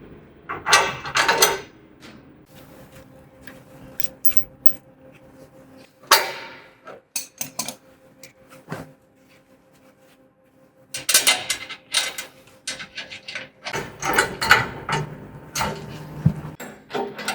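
Irregular clanks, knocks and rattles of steel sawmill-bed parts and hand tools being handled during assembly, quieter between about seven and eleven seconds in.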